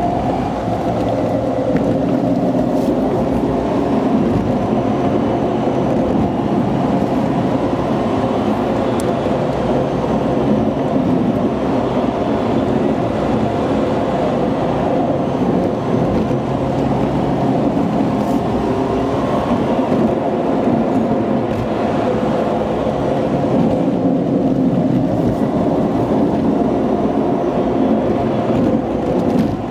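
Car driving: steady engine hum and tyre and road noise.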